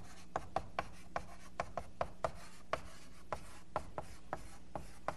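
Chalk writing on a blackboard: a quick, irregular run of sharp taps and short scrapes, about three or four a second, as a line of code is written out.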